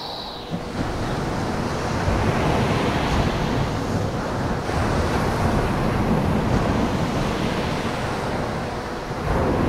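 Ocean surf: waves washing onto rocks in a steady rush that swells and eases, growing stronger about two seconds in and surging again near the end.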